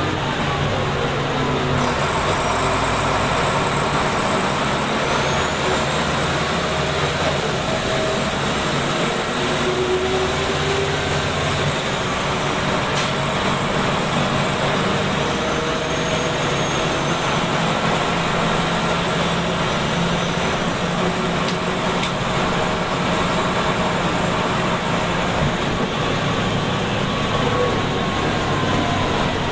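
Scania DS9 9-litre six-cylinder turbo diesel, rear-mounted, running steadily under way, heard from inside the bus cabin with road noise. The engine note shifts in pitch a few times as the bus changes speed.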